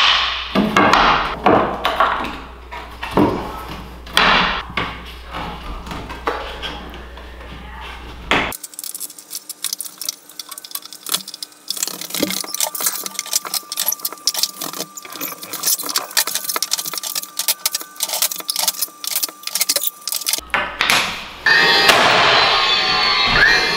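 Irregular knocks, taps and scrapes of carpentry work on a wooden stair railing, then a long run of rapid sharp clicks. Background music comes in near the end.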